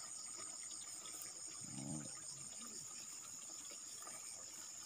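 Insects chirring steadily in the grass, a constant high-pitched drone. About two seconds in, a brief low vocal sound.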